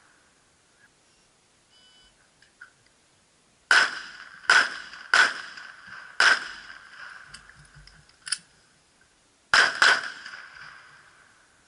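A shot timer's short beep, then semi-automatic pistol shots: four shots over about two and a half seconds, a sharp click, then a quick pair of shots near the end. Each shot has a trailing echo.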